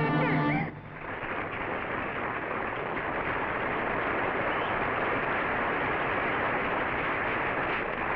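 An orchestral chord with sliding notes cuts off abruptly under a second in, followed by steady audience applause.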